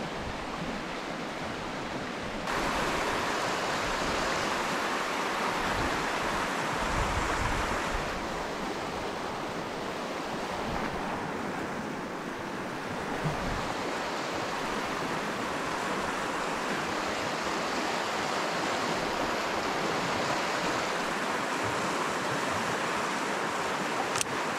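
Rushing water of river rapids running over rocks: a steady, even rush that gets louder about two and a half seconds in.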